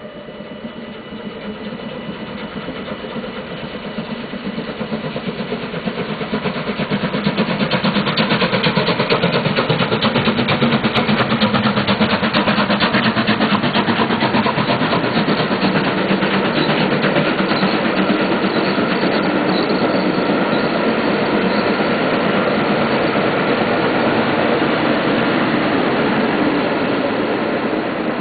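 A train headed by the steam locomotive VSM 23071 and pushed by two diesel locomotives passes by. It grows louder over the first several seconds, holds steady, and eases off a little near the end.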